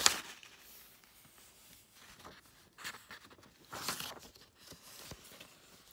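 Paper pages of a picture book being turned by hand: a sharp rustle right at the start and another, softer one about four seconds in, with faint handling noises between.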